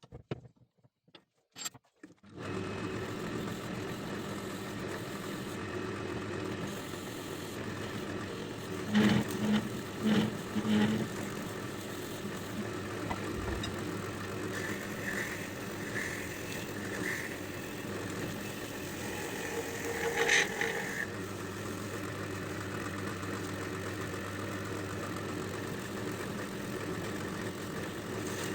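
Wood lathe motor starting about two seconds in and then running steadily, with a few short louder sounds around the middle.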